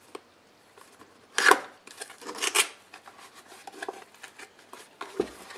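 A small cardboard box being opened by hand: cardboard flaps scraping and foam packing sliding out. Two louder scrapes come between one and three seconds in, small rustles and clicks follow, and a light knock comes near the end.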